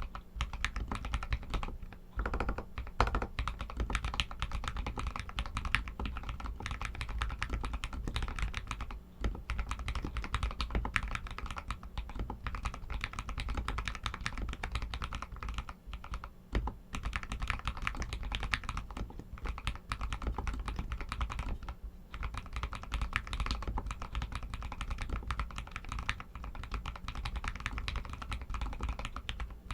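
Continuous fast typing on an RK61 mechanical keyboard with Outemu Red linear switches: a dense stream of key clacks with a few brief pauses.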